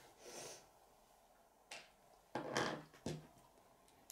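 Plastic K'nex pieces clicking and rattling as they are picked up and handled against a wooden table: a few separate soft clicks, with the loudest cluster of knocks a little after halfway.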